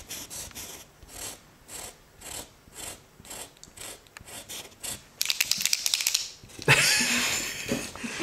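Nib of a paint marker scratching back and forth on a rough wall in quick strokes, about three a second, while filling in a painted area. About five seconds in the scrubbing gets faster and louder.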